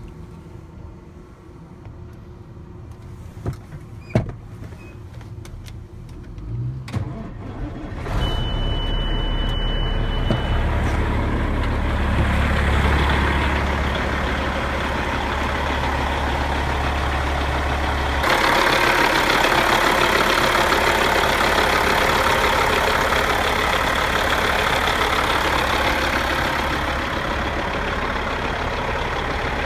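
Diesel engine of a 1997 Peterbilt 379 truck. A few clicks, then it starts about eight seconds in, with a high steady tone sounding for about two seconds as it catches. It then idles steadily, louder and brighter from about eighteen seconds in.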